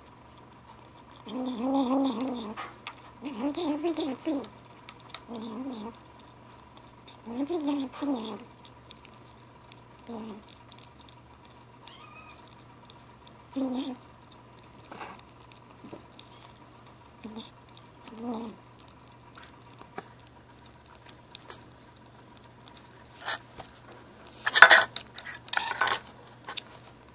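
Seven-week-old gray kitten making short growling "talk" calls while eating canned food. The calls are drawn-out and wavering in the first half and become shorter and fainter later. Near the end there is a loud burst of clinking and clatter against the metal can.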